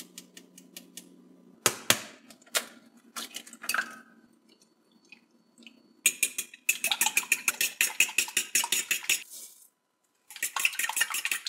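Kitchen utensils clinking on dishes: a spoon tapping in a ceramic ramekin, a few sharp knocks on a bowl, then long runs of rapid clinking, about five a second, as the egg-and-milk custard mixture is beaten in a glass mixing bowl.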